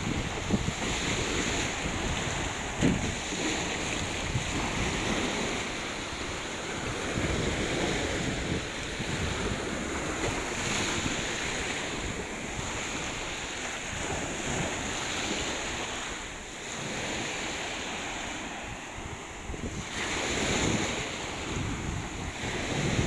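Sea waves washing onto the shore, a continuous surf hiss that swells a few times, with wind buffeting the microphone.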